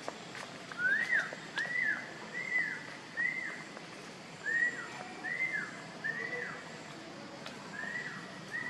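A series of short whistle-like animal calls, each note rising and then falling in pitch. The notes come a little more than once a second, in three runs of a few notes with short pauses between them.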